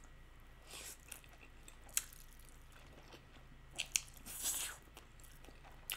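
Faint sounds of a person eating stir-fried instant noodles: scattered wet mouth clicks from chewing, and a short soft slurp about four and a half seconds in.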